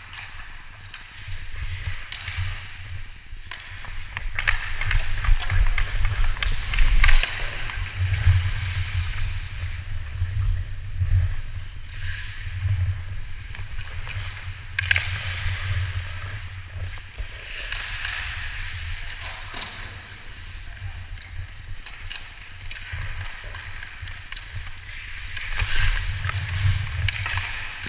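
Hockey skate blades carving and scraping on the ice, swelling and fading with each stride and stop, with a few sharp clacks of sticks and puck and a steady low rumble underneath.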